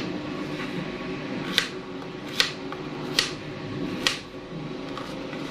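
Kitchen knife slicing a potato on a plastic cutting board: four sharp knocks of the blade on the board, evenly spaced a little under a second apart.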